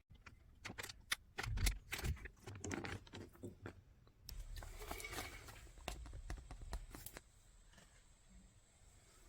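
Toy packaging being handled and opened: a fast run of small clicks and crinkles, then a denser stretch of rustling that dies down near the end.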